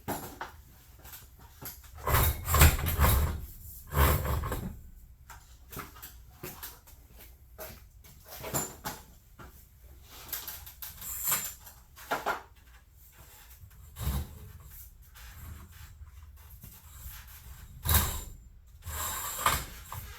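Irregular knocks, clatters and scraping noises, loudest in a cluster about two to four seconds in and again at about eighteen seconds.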